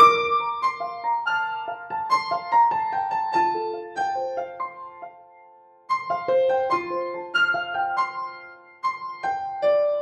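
Background piano music: a slow melody of single notes, each ringing and decaying, that fades almost to silence about five seconds in and then starts again.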